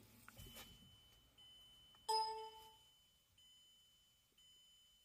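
Electronic chimes: one louder, lower chime about two seconds in, and a faint high beep that repeats about once a second, each fading away before the next.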